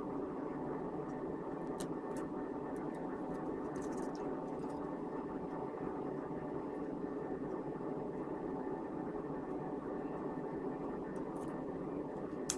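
Steady background hum and hiss, with a few faint light clicks scattered through it.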